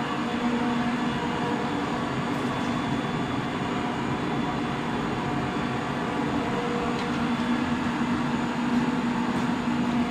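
Induction heater unit's cooling system running with a steady machine hum and a low buzzing tone, with a few faint clicks.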